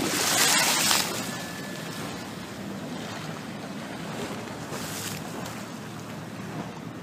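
Choppy sea water washing against the shore, with wind buffeting the microphone; a louder rush of surf comes in the first second.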